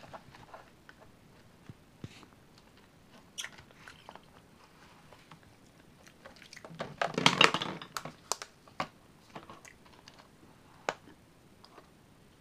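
A macaque handling a plastic water bottle and a plastic sippy cup on a sink counter: scattered small taps and clicks of plastic, with a denser, louder clatter lasting about a second around seven seconds in.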